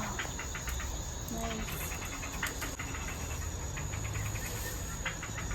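Insects chirping in the garden in short trains of rapid pulses, over a steady high-pitched insect whine.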